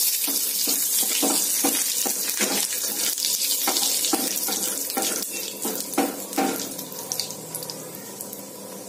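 Panch phoron, dry red chillies and curry leaves sizzling and spluttering in hot mustard oil in a kadhai, stirred with a wooden spatula that scrapes and knocks against the pan several times. The sizzle and stirring die down about six and a half seconds in.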